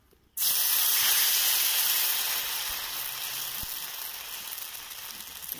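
Rice batter for chitau pitha hitting a hot kadai and sizzling: a loud hiss that starts suddenly about half a second in as the ladleful is poured, then slowly dies down as the pancake begins to set.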